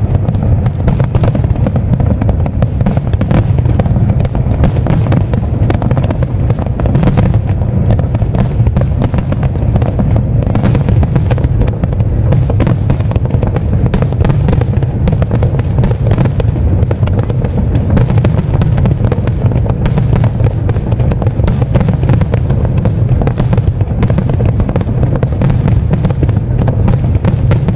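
A fireworks barrage of aerial shells bursting in quick succession. The booms and crackles run together without a break.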